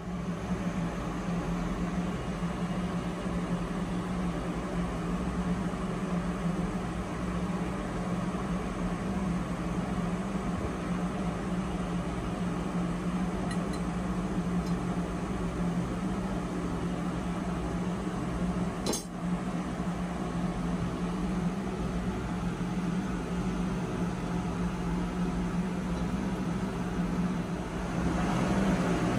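Steady hum of ship's engine-room machinery. A single sharp metallic click comes about two-thirds through, from a spanner on the fuel-line fitting of the injector test bench, and the noise grows louder near the end.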